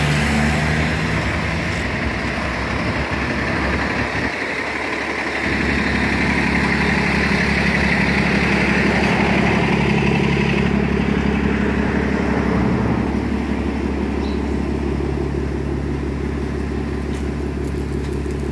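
Street traffic noise with an engine running steadily close by. Its low hum becomes stronger and steadier about five seconds in.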